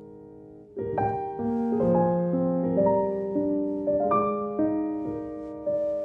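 Piano background music: a held chord dies away, then just under a second in a melody of single notes begins over sustained chords.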